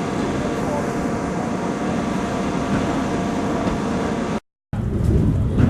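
Train running along the line, a steady rumble with a few faint steady tones. About four seconds in the sound drops out briefly, then comes back louder and lower.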